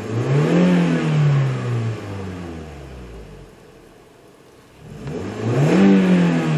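2008 Toyota Auris engine revved twice from idle. Each rev rises quickly and falls back to idle: the first peaks just under a second in, the second starts about five seconds in.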